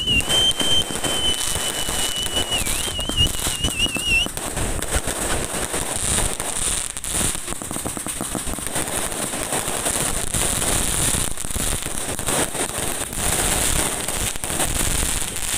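Fireworks going off: a dense, irregular run of crackling pops and bangs, with a high steady whistle for the first four seconds or so that warbles briefly before cutting off.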